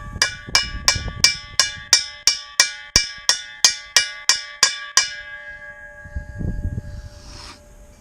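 Hammer striking the steel driveshaft yoke about three times a second for some five seconds, each blow leaving the metal ringing, as the new U-joint's bearing caps are driven into the yoke. A short low rumble and knock follow near the end.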